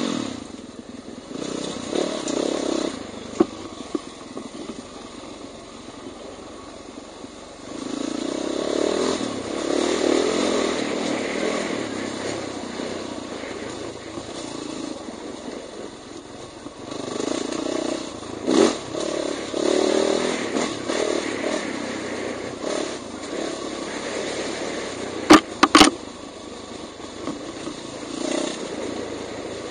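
Dirt bike engine running along a trail, the throttle opening and closing so the sound swells and eases, with a few sharp knocks, several of them near the end.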